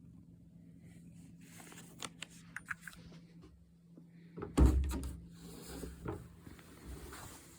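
Light rustling and clicks, then a single heavy thump about four and a half seconds in, followed by more rustling, over a faint steady hum.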